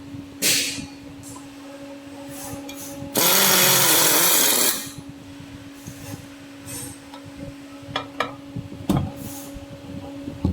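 A small electric motor whirs loudly for about a second and a half, its pitch wavering, over a steady low hum. A few sharp clicks follow near the end.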